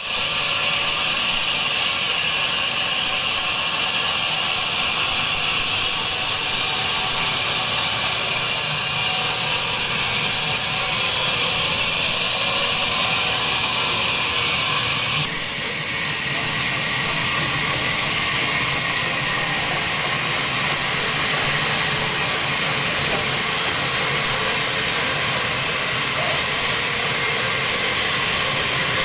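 Sawmill saw running and cutting timber to size: a loud, steady, high-pitched machine noise whose tone changes abruptly about halfway through.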